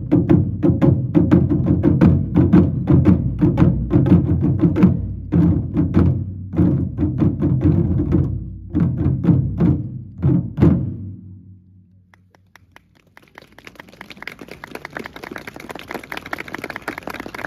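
Ensemble of Japanese taiko drums played with sticks, many strokes in a driving rhythm, building to a final loud hit about eleven seconds in whose ringing dies away. A couple of seconds later applause and crowd noise rise.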